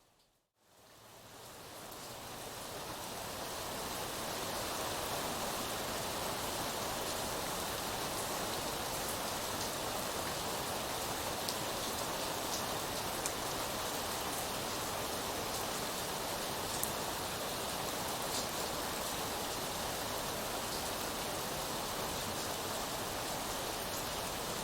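Steady rainfall, a dense even hiss with a few scattered drop ticks. It cuts to silence about half a second in and fades back up over the next few seconds.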